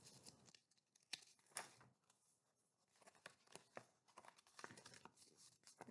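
Faint rustling and small taps of a paperback picture book being handled and lifted, with scattered paper sounds from about three seconds in.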